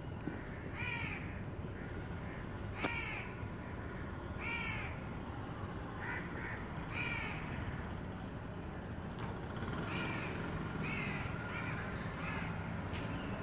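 Crows cawing repeatedly, a short harsh call about once a second, over a steady low background hum.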